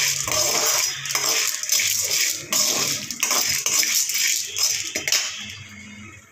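Steel ladle scraping and clinking against a metal kadai, stirring dried red chillies and chana dal as they roast in a spoonful of oil. The stirring stops about five seconds in.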